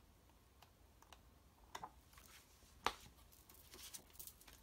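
Faint flicks of paper pages as a thin paperback book is leafed through by hand, with one sharper tap about three seconds in and soft paper rustling near the end.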